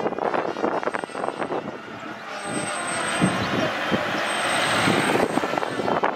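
A motor vehicle passing close by: a broad rushing noise that swells to a peak about five seconds in and then falls away. Scattered short knocks come before it in the first two seconds.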